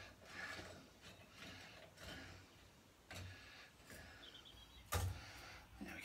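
Faint handling sounds at a charcoal fire pit: soft rustles and scrapes as hands work in the firebox, with a sharp knock on the grill about five seconds in.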